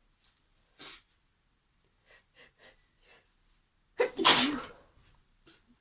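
A woman's sneeze building up: a quick breath in near the start, a few faint short catching breaths, then one loud, sudden sneeze about four seconds in.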